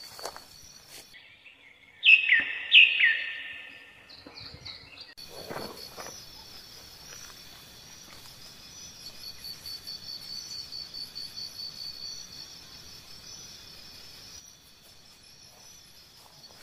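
A bird gives two loud calls, each sweeping down in pitch, about two seconds in, over an insect's steady, rapidly pulsing high chirring. Faint footsteps crunch through dry grass.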